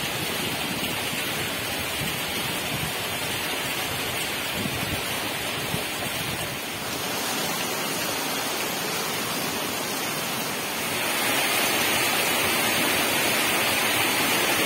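Heavy rainstorm: a steady downpour pelting the surface of a lake, growing louder about eleven seconds in.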